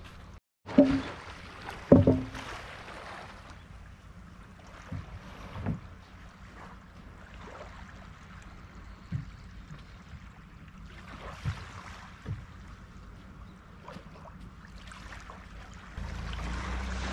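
Boat being hauled up over rollers: two loud knocks about a second apart near the start, then scattered lighter knocks and creaks of hull and rollers. A steady low rumble rises near the end.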